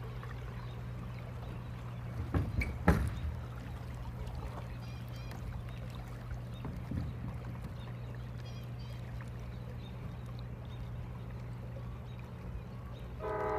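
Water lapping and trickling over a steady low rumble as a pedal-drive kayak moves past, with a few sharp knocks about two and a half to three seconds in.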